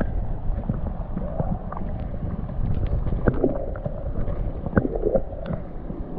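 Muffled underwater sound of fast-moving river current picked up by a camera held beneath the surface: a dense low rumble with scattered small clicks and knocks.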